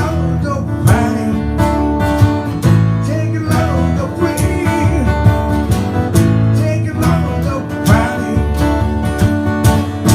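Guitar and bass playing an instrumental passage of a country-rock song, the guitar strumming in a steady rhythm over held bass notes.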